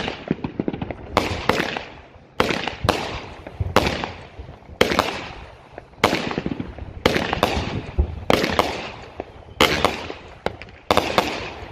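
Phantom Fireworks Fiery Discus 200-gram consumer cake firing shot after shot: a run of sharp launch bangs and aerial bursts, about one every half second to a second, each trailing off briefly.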